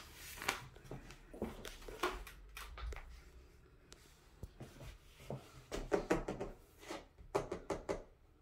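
Faint scattered clicks, light knocks and rustling from a phone being carried and handled in a small bathroom, with a denser cluster of small knocks in the last couple of seconds as fingers touch the wall tile.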